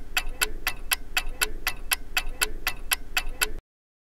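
Clock-ticking sound effect for a countdown timer: an even run of quick ticks, several a second, that cuts off abruptly near the end.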